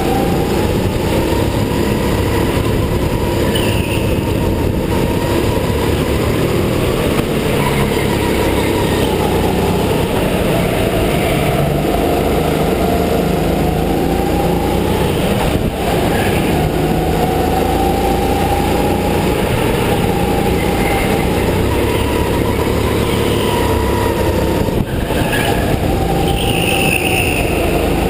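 Go-kart being driven hard around an indoor track: a steady motor whine that rises and falls in pitch with speed through the corners, over a continuous rumble of tyres and chassis.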